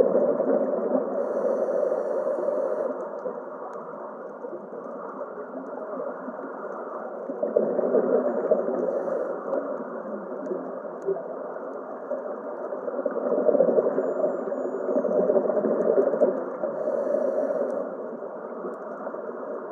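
Muffled underwater ambience: a dull rushing noise that swells and fades every several seconds, with nothing higher-pitched above it.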